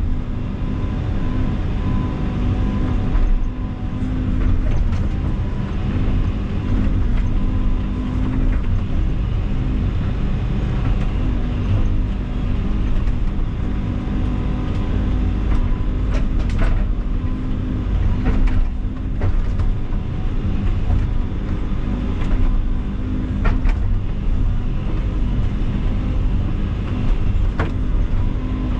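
Diesel engine of a heavy earthmoving machine running steadily under load, with a few sharp knocks or cracks scattered through.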